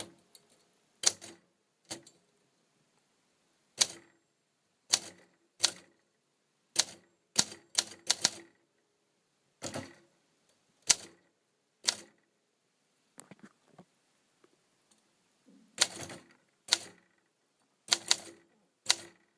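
1969 Olympia SM9 manual typewriter being typed on: slow, uneven keystrokes, about twenty sharp clacks with pauses between them.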